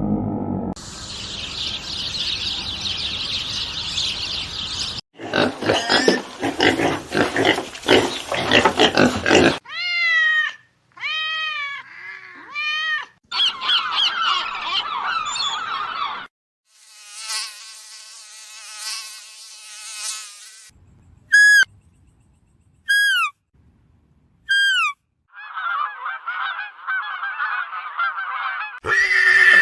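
A run of short, abruptly cut clips of different animal calls, one after another: a high hissing band, rapid rhythmic chattering, arching calls, a buzzy trill, and four short falling whistles about a second and a half apart.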